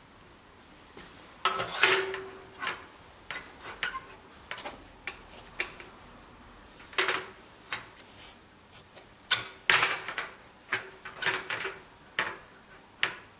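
Flexible corrugated metal exhaust mock-up tubes being handled and pushed into place against a motorcycle engine and frame: irregular metallic clattering and rattling, with the sharpest clanks about two seconds in and again near ten seconds.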